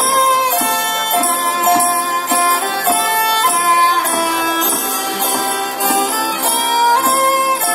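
Folk ensemble of acoustic guitars and violin playing a Christmas tune: a clear, steady melody of held notes over guitar accompaniment.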